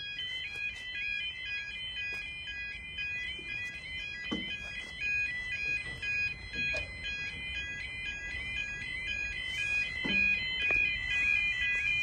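Level crossing yodel alarms (YA30 type) sounding continuously: a rapid warble of alternating stepped high tones. The warble is the warning that the crossing is closing for an approaching train.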